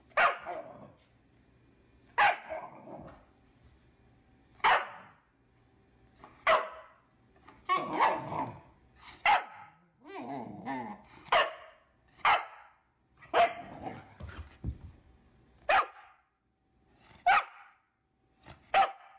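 Half-husky puppy giving about a dozen short, sharp barks, roughly one every second or two, with a longer wavering grumble about ten seconds in; the owner takes this barking as the puppy talking back.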